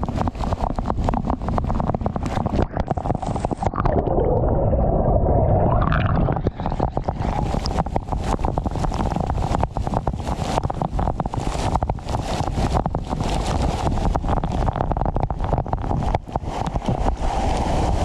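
Waterfall water rushing and splashing close by, a loud steady roar with dense crackling on the microphone. For about two seconds, around four seconds in, the sound turns muffled before the full roar comes back.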